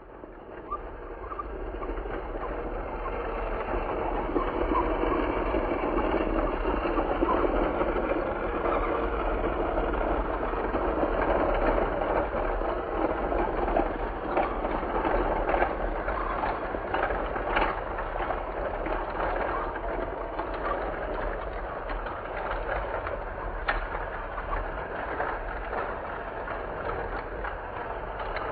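Sound effect of a long, heavy freight train rolling on the rails: a steady rumble that builds over the first few seconds and holds, with scattered sharp clicks and clanks of wheels and cars.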